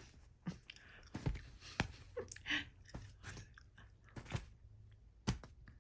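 Soft, irregular clicks and short rustles close to the microphone as a cat toy is handled and played with, about a dozen across several seconds.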